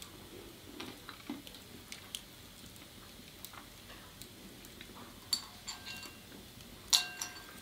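Hazelnuts and their shells being handled against a dish: scattered small clicks, then two sharper clinks that ring briefly, the louder one near the end.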